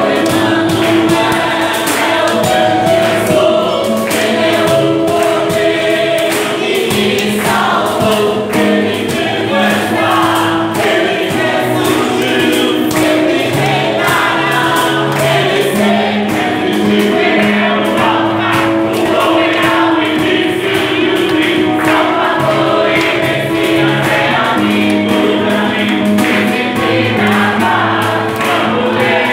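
Live Christian worship song: a man singing through a microphone and PA, with many voices singing along, over held chords and a steady percussion beat from a cajón.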